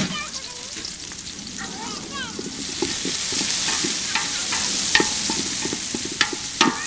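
Sliced onions and green chillies sizzling in hot oil in a large metal pot while being stirred with a long spoon. The sizzle swells about halfway through as the onions are turned, with a few scraping knocks of the spoon against the pot near the end.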